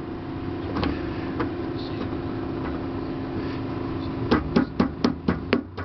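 Sharp metallic taps on the 6.2 diesel's glow plug relay, starting about four seconds in and going at about four a second. They are heard over a steady hum, while the owner checks the relay because the glow plugs are not coming on in the freezing cold.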